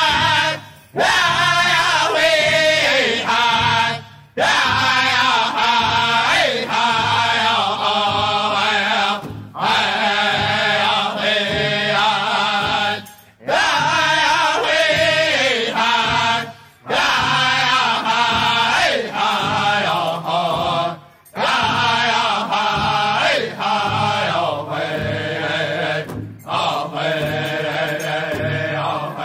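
Music: a chanted song sung in long phrases with short breaks between them, over a steady low accompaniment.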